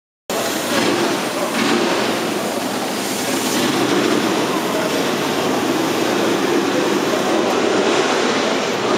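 Steady, loud background din with no clear engine note, with indistinct voices mixed in.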